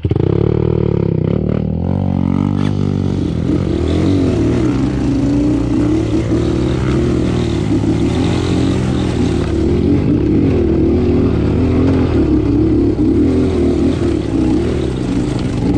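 Motorcycle engine running close by, its pitch wavering up and down as it revs. It starts suddenly and runs steadily.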